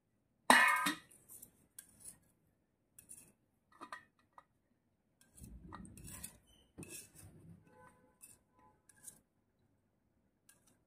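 Kitchen knife tapping and scraping on a rolling board and a steel plate as cut dough pieces are slid across: scattered light clicks and clinks, with one sharp knock about half a second in.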